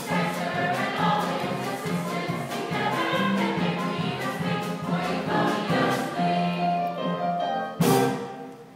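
Music with a choir of voices singing, cut off near the end by one sharp, loud hit that quickly dies away.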